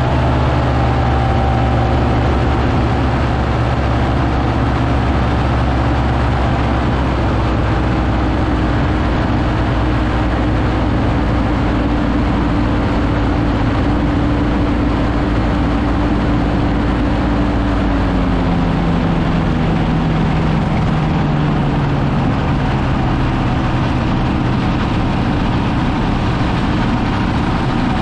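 Powered parachute's engine running steadily in flight behind the pilot, with a rough rushing noise over it. About two-thirds of the way through its pitch drops as the throttle is eased back.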